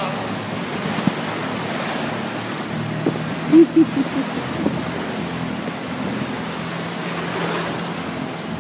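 Small motorboat at sea: a steady wash of water and wind noise over a low engine hum. A few short louder knocks come about three and a half seconds in.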